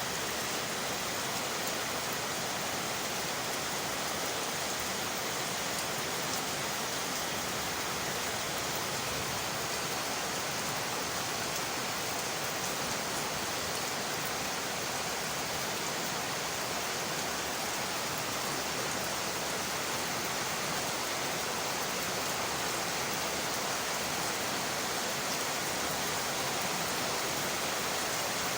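Steady rain on window glass: an even, unbroken hiss of falling drops.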